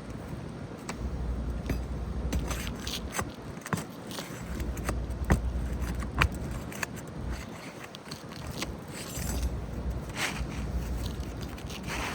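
Asphalt roof shingle being pried and worked loose by hand and tool: repeated scraping and sharp clicks of tool and shingle against the roof. Low rumbling gusts of wind on the microphone come and go underneath.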